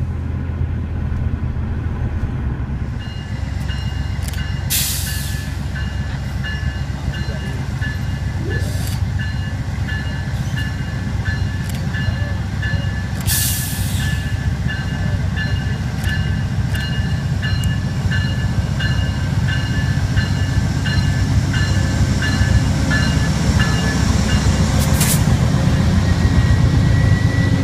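Amtrak passenger train led by a GE Genesis diesel locomotive, running past with a steady engine rumble and wheels on the rails, growing louder toward the end as the cars go by. A bell rings steadily about twice a second from a few seconds in until near the end, and there are a few short hisses.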